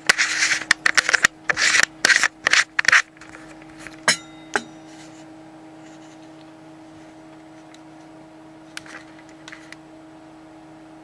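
Rubbing and scraping handling noise as a hand works right over the camera to zoom in, followed about four seconds in by two sharp clicks, then a steady low hum with a few faint ticks.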